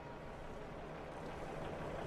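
An approaching car, its rushing engine and road noise growing steadily louder.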